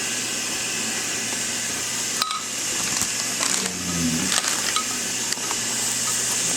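A man snoring while asleep under a running shower: one low snore about three and a half seconds in and the next beginning right at the end, over the steady hiss of the shower spray.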